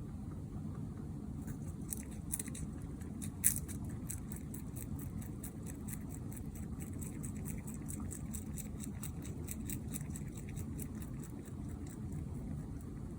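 A mini rex rabbit's teeth clicking rapidly and evenly, several small clicks a second, with one sharper click a few seconds in, over a steady low hum of room noise.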